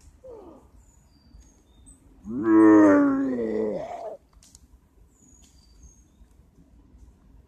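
A loud, drawn-out howling cry lasting about two seconds, bending in pitch as it ends, preceded by a short falling yelp near the start. Faint high chirps sound in the background.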